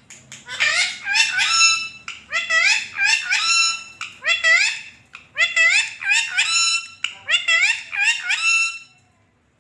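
Pet parrot calling over and over, a quick string of short pitched calls that sweep upward, coming in groups and stopping near the end.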